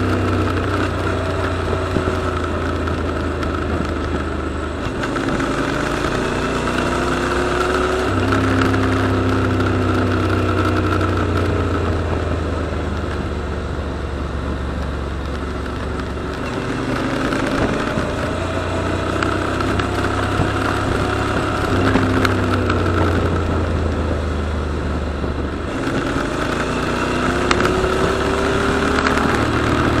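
Motorcycle engine running under way, its pitch rising and falling several times as the revs change, over a steady rush of wind and road noise.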